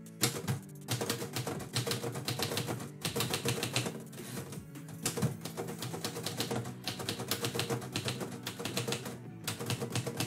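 Manual typewriter being typed on: runs of fast clacking keystrokes with brief pauses, including a carriage return to start a new line. Background music plays underneath.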